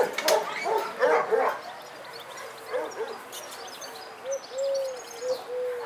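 Dogs barking in a shelter's kennels, a quick run of barks in the first second and a half, then a few short, steady-pitched calls near the end.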